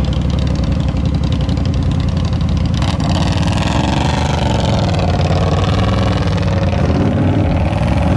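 Polaris Sportsman 850 High Lifter ATV engine running at low revs as the quad wades through a muddy creek, the throttle eased up and back down about halfway through, with water splashing around the tires.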